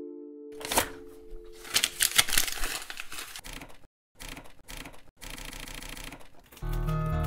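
Typewriter being worked at the paper: a dense run of clicks and rattles mixed with paper noise, a brief pause just before the middle, then more rattling and paper noise until music comes in near the end.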